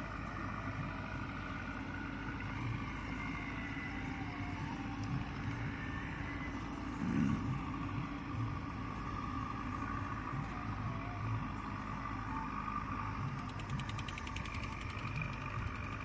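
Backhoe loader's diesel engine running steadily, with a steady whine over the engine note and a brief louder surge about seven seconds in. Near the end a fast, even ticking comes in over it.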